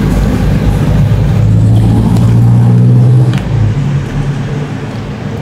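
A motor vehicle's engine running close by, a steady low hum that grows louder and then falls away a little after three seconds in.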